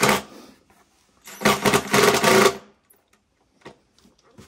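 Cordless power drill driving a screw into a cat-tower platform in two bursts: a short one at the start, then a longer one of just over a second at about a second and a half in. A few faint knocks follow.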